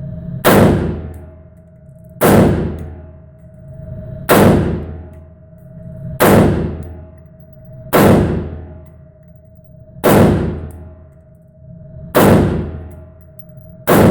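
A loud, sharp clanging bang about every two seconds, seven in all with an eighth at the very end. Each rings out for about a second over a steady low tone.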